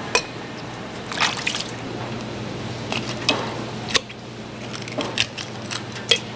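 A steel cleaver knocking and scraping on a wet wooden chopping block as a whole milkfish is handled on it, with a handful of sharp separate knocks and wet, splashy sounds between them. A low steady hum runs underneath.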